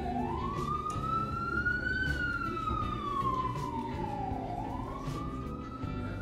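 Emergency-vehicle siren in a slow wail: its pitch rises for about two seconds, falls for about two and a half, then rises again.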